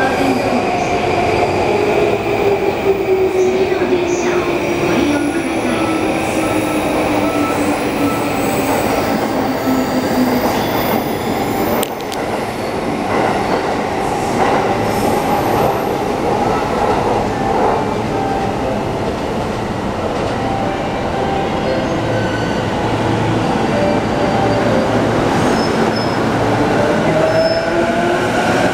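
E233-1000 series electric commuter train braking into a platform: its inverter and traction-motor whine falls steadily in pitch over the first ten seconds as it slows to a stop. It stands amid station noise, and near the end the whine rises again as the train pulls away.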